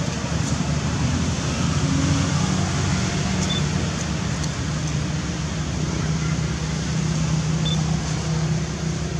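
Steady low droning rumble with an engine-like hum. Two brief high peeps sound about a third of the way in and near the end.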